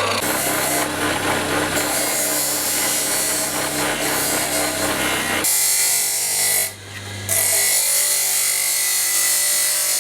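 Power tool with a steady motor hum running against a workpiece, giving a loud, harsh grinding noise; the sound changes abruptly about halfway through and dips briefly a little later.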